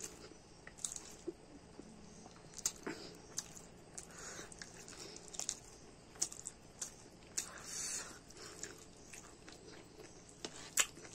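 Close-up chewing of a mouthful of rice and potato curry, heard as irregular wet smacks and small clicks, while fingers scoop and press the food on a steel plate.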